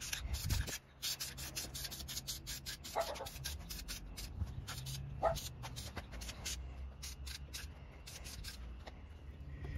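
Aerosol can of black spray paint being sprayed in many quick short bursts, each a brief hiss, growing sparser near the end.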